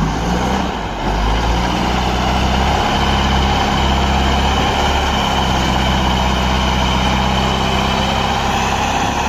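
Caterpillar 950B wheel loader's six-cylinder diesel engine running steadily as the loader pushes its bucket into a sand pile.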